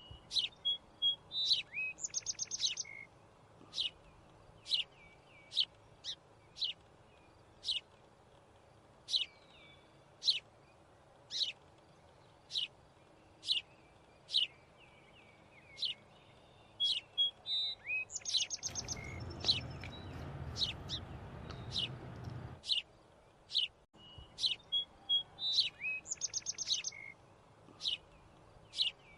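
Birdsong: short, sharp chirps about once a second, with a fast trilled phrase that comes three times. A rushing hiss rises under it for about four seconds past the middle.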